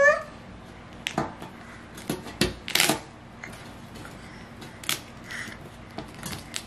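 Small scattered crackles and taps of a baby's fingers picking at masking tape stuck to a baking sheet, busiest about two to three seconds in. A high vocal whine cuts off right at the start.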